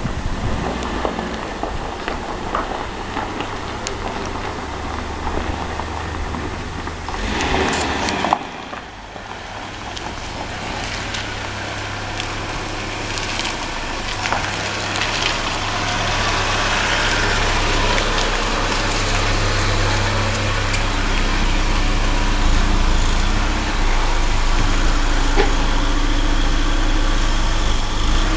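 Hyundai Coupe's engine running with a steady low hum. About eight seconds in there is a short noisy surge and a sharp knock. After that the engine sound grows steadily louder.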